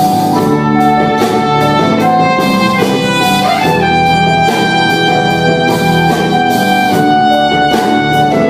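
Instrumental break in a pop song: a violin-like melody over a band with a steady drum beat, no singing.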